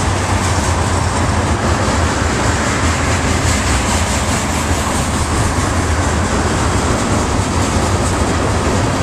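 Freight train of tank cars rolling steadily past at close range: a continuous loud rumble and rattle of steel wheels on the rails, with faint clicking from the rail joints.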